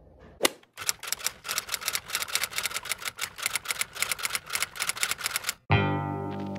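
Typewriter key clacks in a quick, even run of strikes, several a second, as a sound effect for text appearing on screen. Near the end the clacking stops and music with guitar starts.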